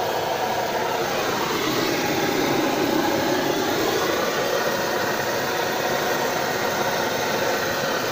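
Chicken pieces deep-frying in a wok of hot oil over a gas burner turned up high: a steady rushing noise of bubbling oil and burner flame.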